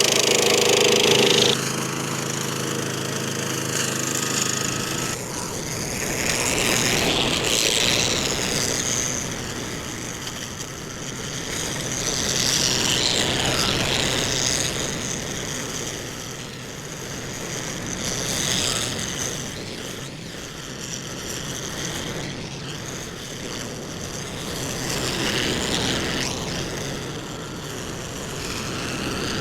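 Petrol engine of an SDLANCH SDLLM500 remote-controlled tracked mower running with its blades down, cutting long grass. The sound swells and fades several times as the machine moves nearer and farther.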